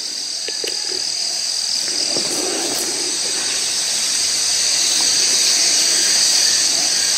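A steady, high-pitched chorus of insects, with the low rush of a car driving past on the road growing louder through the second half.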